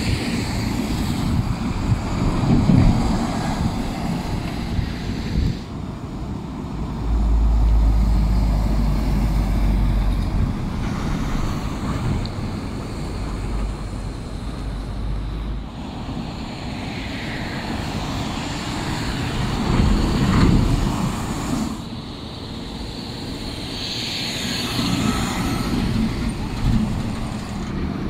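Heavy diesel dump trucks hauling snow drive past on a wet street: engines running and tyres on the wet pavement. A deep engine rumble swells as a truck passes close, about seven to eleven seconds in.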